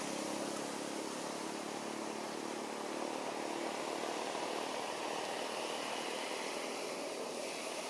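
Steady rushing background noise with no distinct events standing out.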